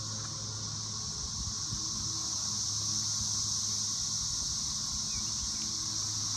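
Steady high-pitched chorus of insects, a continuous shrill hiss, over a low steady hum.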